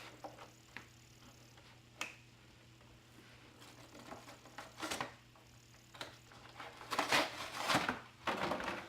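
Blister-pack toy packaging being handled and opened: a few light clicks, then crinkling plastic-and-cardboard rustles, loudest near the end.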